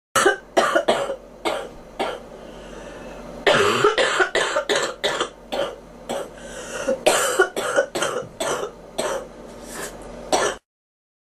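A girl coughing in a long fit of short, sharp coughs, about two a second, with a brief pause a couple of seconds in; the coughing cuts off suddenly near the end.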